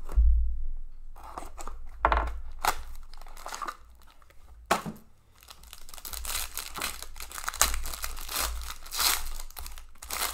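A few knocks and scrapes, then a foil trading-card pack crinkling and tearing open, busy and crackly through the second half.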